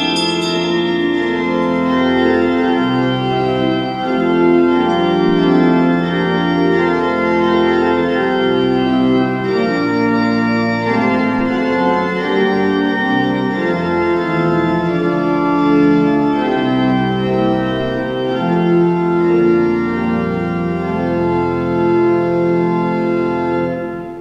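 Organ playing slow sustained chords over a bass line that steps to a new note every second or two.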